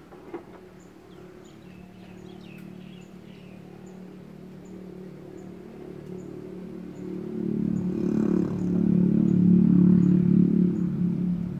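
A motor vehicle's engine running as a low steady hum, growing much louder from about seven seconds in.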